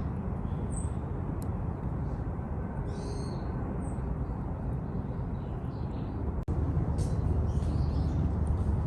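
Domestic cat purring steadily, a continuous low rumble, with a short break about six and a half seconds in.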